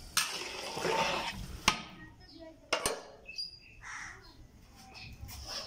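A metal ladle stirring a watery tomato-and-potato curry in a metal wok: a sloshing swish for about a second and a half, then three sharp clicks of the ladle against the pan.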